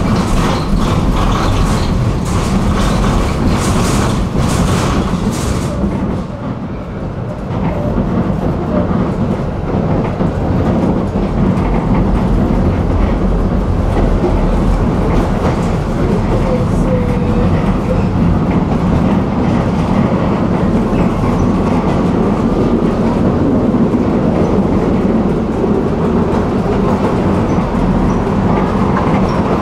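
A tram running along its rails with a steady rumble. It eases off for a couple of seconds about six seconds in, then runs on steadily.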